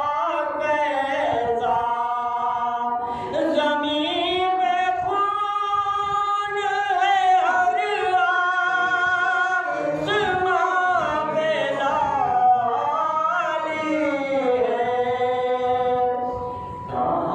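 A man singing solo and unaccompanied into a microphone: a slow, melodic chant with long held notes that waver and slide in pitch, broken by a short pause for breath near the end.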